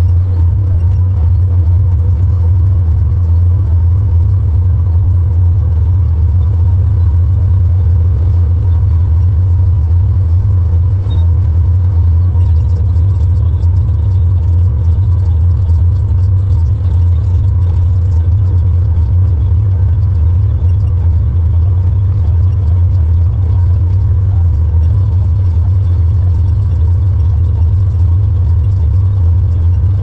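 Tractor engine running steadily under load while pulling a square baler, heard from inside the cab as a deep, even hum that does not change.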